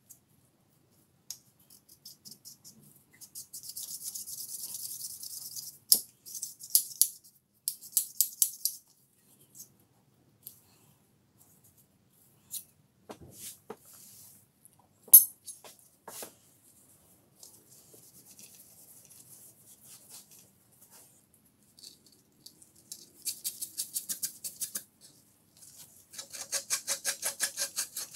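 Small steel parts of an old rusted vernier caliper being handled and cleaned: scattered clicks and taps, one sharp click about halfway through, and several short spells of brisk rubbing. The last spell, near the end, is a small knurled part held in pliers being scrubbed.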